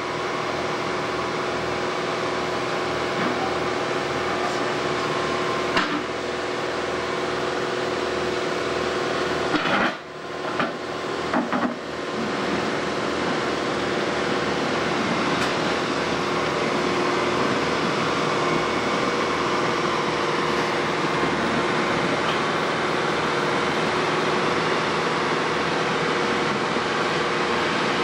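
Road-rail excavator working, its diesel engine and hydraulics running steadily as its grapple lifts a section of track, rails on their sleepers. The noise carries a few held tones, and a few sharp knocks and clanks come about ten to twelve seconds in.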